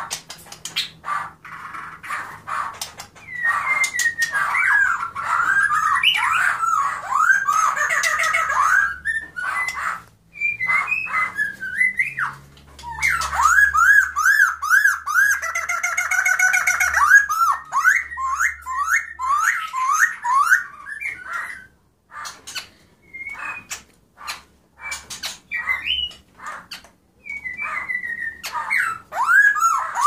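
Caged songbird singing: bouts of fast, looping whistled notes, broken by short sharp chips and a few brief pauses, the longest about two-thirds of the way through.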